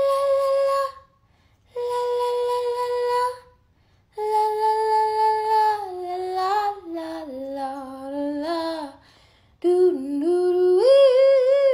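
A woman singing wordless notes: two long held notes, then a longer phrase that steps down in pitch and another that climbs back up. The notes stay in her ordinary singing range, well below whistle register.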